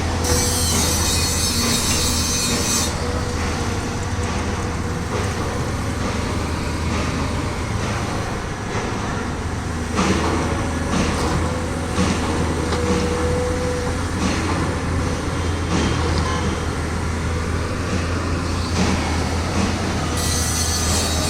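Heavy machinery running with a steady low drone, a faint thin squeal and occasional metallic clanks. Bursts of high hiss come in the first few seconds and again near the end.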